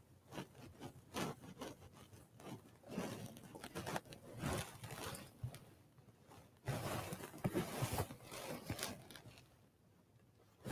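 Faint rustling of cloth with light scrapes and small clicks, coming in irregular spells, as vestments move while the server adjusts his surplice and kneels. It goes quieter near the end.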